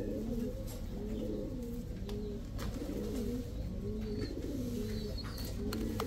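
Domestic pigeons cooing: an unbroken run of low, repeated coos, with a few faint clicks.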